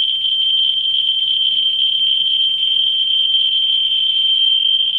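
Ludlum Model 3 survey meter's audio speaker giving a steady, high-pitched whine from a Model 44-9 Geiger-Müller probe held close to radioactive torbernite/kasolite uranium ore. The clicks come so fast, about 220,000 counts per minute, that they run together into one continuous tone.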